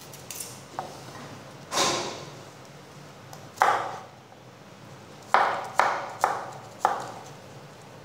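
Chef's knife knocking on a plastic cutting board as garlic cloves are cut: about six sharp knocks, each with a brief ring, two spaced apart and then four in quicker succession in the second half.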